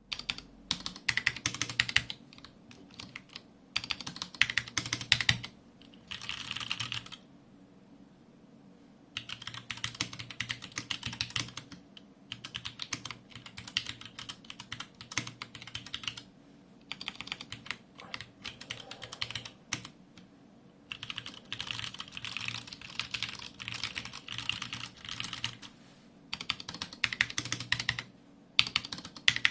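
Typing on a Varmilo VA87M tenkeyless mechanical keyboard with Cherry MX Brown tactile switches and stock keycaps. Quick runs of key clacks come in bursts of a few seconds, broken by short pauses, the longest of about two seconds early on the way through.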